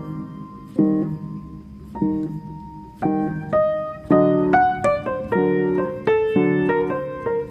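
Background piano music: chords and single notes struck and left to fade, slow at first, then a quicker run of notes from about halfway through.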